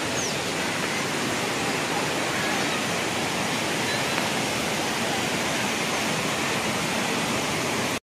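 Steady rush of water from a waterfall.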